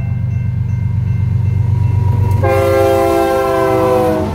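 Freight train's diesel locomotive horn sounding at a grade crossing: the tail of one blast fades at the start, then a long chord blast begins about two and a half seconds in, sliding slightly down in pitch, over a steady low rumble.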